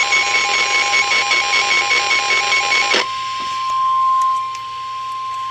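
Weather-alert warning tone: one steady tone just above 1 kHz, typical of the NOAA Weather Radio 1050 Hz warning alarm. For about the first three seconds a rapid pulsing beep and loud static sit over it, then both cut off suddenly and the steady tone carries on alone.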